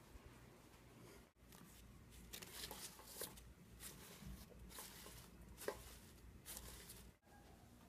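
Faint, irregular rustling and brushing: furry fabric rubbing close to the microphone as the toy is handled.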